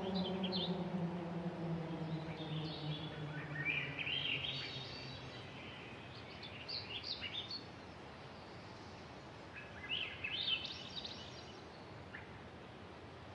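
A low droning tone sliding slowly down in pitch and fading out over the first few seconds, while birds chirp and twitter in short bursts on and off throughout, most strongly about ten seconds in.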